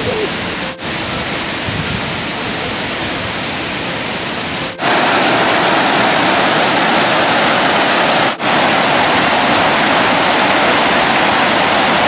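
Steady rushing of a waterfall and a creek's white-water rapids, broken by short cuts between clips; it grows louder about five seconds in.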